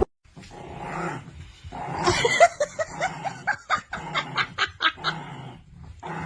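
A dog giving a quick run of short, high yips and whines, starting about two seconds in.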